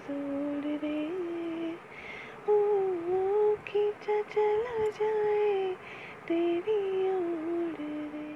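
A woman singing unaccompanied, drawing the closing phrase of the song out on long held notes with small melodic turns. It ends on one long steady note.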